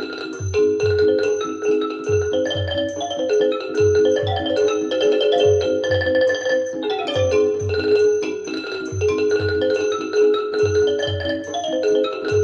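Music played through a pair of Wilson Audio WATT/Puppy 7 loudspeakers: a melody of struck, marimba-like mallet-percussion notes over a regular low bass pulse.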